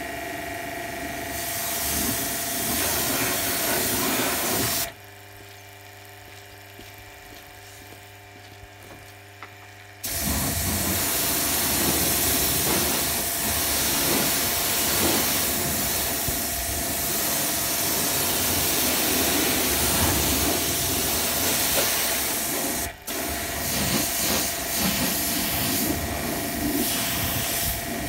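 Pressure washer lance spraying water: a loud, steady hiss over a steady pump tone. The spray stops for about five seconds near the start, then resumes, with one brief break later on.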